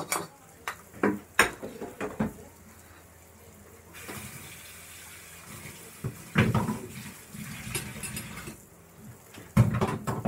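Metal cookware and utensils clinking and knocking several times, then a steady hiss that starts about four seconds in and lasts about four seconds.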